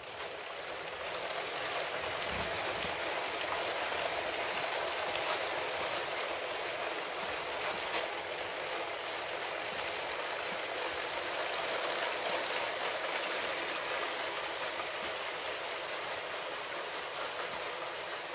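A long Lego City passenger train with many wagons rolls along plastic Lego track, its plastic wheels running on the rails with a steady rushing clatter. The sound builds over the first two seconds as the train comes near, then holds steady.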